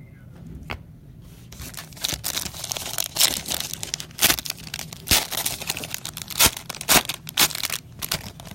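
Trading-card pack or plastic wrapper crinkling and tearing as it is opened, with sharp clicks and snaps of cards being handled; the crinkling starts about two seconds in.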